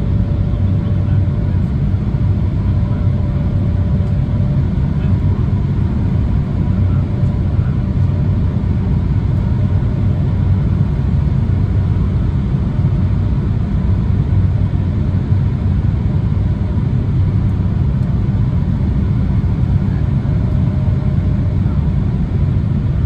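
Steady cabin noise inside an Embraer 175 airliner descending on approach: a deep, even roar of airflow and the two GE CF34-8E turbofan engines, with a faint steady whine above it.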